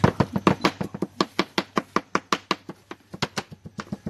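A kitchen knife chopping rapidly on a cutting board: quick, even knocks about six a second, lighter for a moment about three seconds in.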